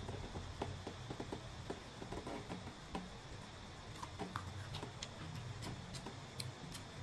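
Scattered faint clicks and taps from eating at the table: clear plastic food tubs handled while slices of green mango are picked out and chewed.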